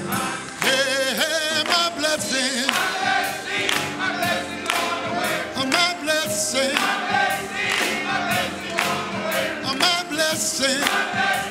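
Men's gospel choir singing with instrumental accompaniment over a steady beat, a lead singer on microphone among them.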